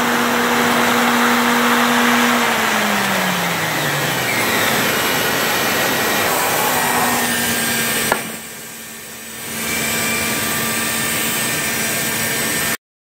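CNC wood machining centre running a shaped router bit: a steady tone over a loud hiss, the tone sliding down in pitch about two and a half seconds in. About eight seconds in there is a click and the noise drops for a second and a half before coming back, then it cuts off suddenly near the end.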